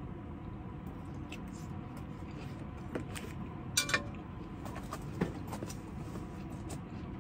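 Metal tongs clicking against a grill pan a few times, with two sharp clicks close together about four seconds in, over a steady low running noise.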